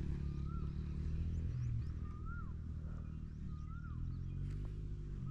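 A bird's whistled call, a short note that rises and then drops, repeated about every second and a half to two seconds, with fainter high chirps, over a steady low hum.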